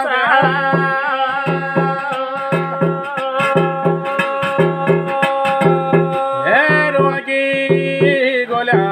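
Garhwali jagar singing with drum accompaniment: the voice holds one long sung note for about five seconds over a steady drum beat, then slides upward and goes on singing near the end.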